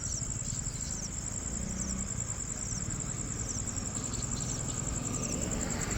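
Insect trilling: one steady, high-pitched, rapidly pulsing tone that does not let up, over a low rumbling noise.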